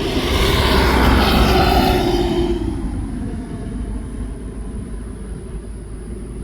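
Jet engines of a Boeing 767-300 airliner passing close by: the noise swells to a peak about a second in, drops in pitch, and fades by about three seconds to a steady distant rumble.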